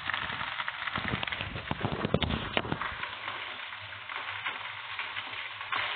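Spaghetti with zucchini and mushrooms sizzling and crackling in a frying pan over a gas flame. A few sharp knocks in the first three seconds, then a steadier sizzle.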